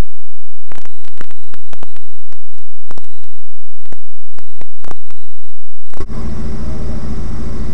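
A loud electronic intro effect: steady humming tones broken by irregular sharp clicks. About six seconds in it cuts off and a car engine is heard idling steadily from inside the cabin.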